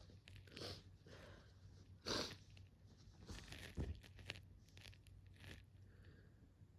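Faint rustling and clicking handling noises, with one short, louder noisy burst about two seconds in and another thump a little before four seconds.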